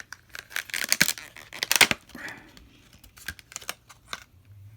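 Retail packaging being pulled open by hand: a run of crackles, snaps and tearing, loudest between about one and two seconds in, then lighter clicks and rustles.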